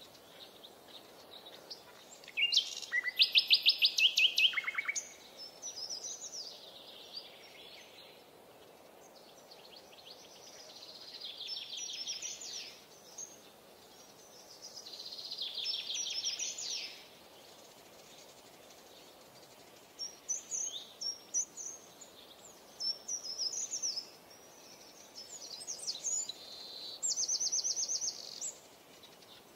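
Songbirds singing: short phrases of rapid trills and chirps every few seconds, the loudest a fast trill about three seconds in.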